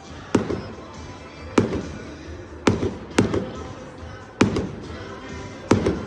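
Fireworks bursting: six sharp bangs at uneven intervals, roughly a second apart, each with a short echoing tail, over music.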